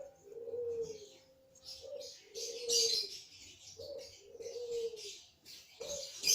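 A bird cooing in a repeating phrase, a short note followed by a longer falling note, about every two seconds, over a faint high hiss.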